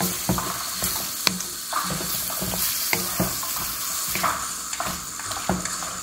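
Tomato and onion masala sizzling in a steel kadai, with a wooden spatula scraping and clicking against the pan.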